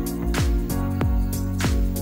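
Background music: sustained instrumental notes over a steady beat of about three strikes a second.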